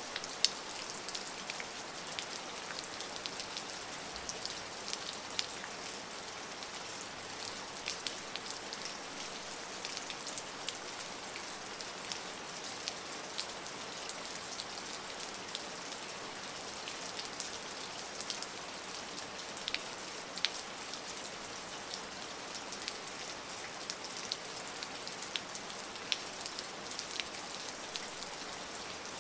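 Steady rain: an even hiss with many separate drops landing as sharp ticks on a hard surface.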